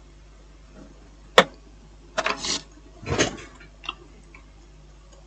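Handling noises on a repair bench: one sharp click, then two short scraping bursts and a lighter click, over a faint steady hum.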